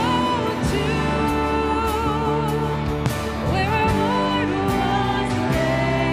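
Live worship band playing a Christian song, with acoustic guitar, electric bass and drums under a singer holding long notes.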